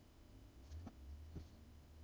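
Near silence: low room hum with two faint clicks.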